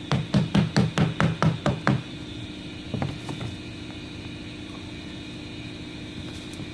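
Rubber mallet lightly tapping on a windshield's rubber extrusion to seat its clips: a quick run of about nine dull knocks in two seconds, then a few softer taps about three seconds in.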